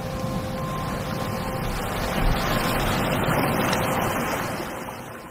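Ocean waves, a steady rush of surf that swells a little in the middle and fades out near the end. A few faint held notes of background music run underneath.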